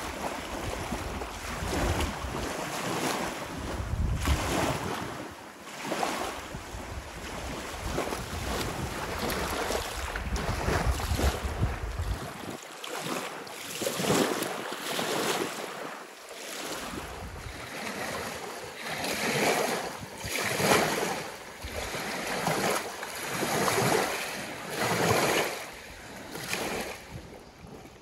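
Small waves washing up and breaking on a sandy, pebbly shore, swelling and falling every couple of seconds. Gusty wind buffets the microphone with a low rumble through roughly the first half.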